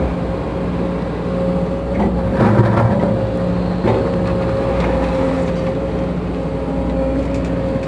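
Case CX210B excavator running, a steady whine over the diesel engine, with a few knocks about two to three seconds in. The owner describes a howl from the pump area, and the mechanic suspects a noisy main hydraulic pump.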